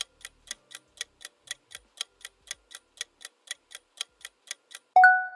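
Quiz countdown-timer sound effect: a clock ticking about four times a second as the timer runs down. Near the end the ticking stops and a loud steady chime tone sounds, signalling that time is up.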